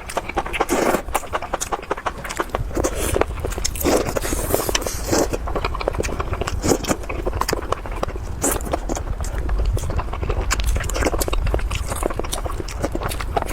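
Close-miked eating sounds: chewing and biting of food, with many quick, irregular clicks and smacks over a low steady rumble.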